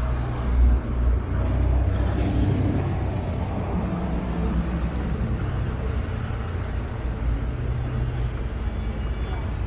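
Vaporetto water bus engine running steadily underway, a continuous low rumble, with water rushing and splashing past the hull.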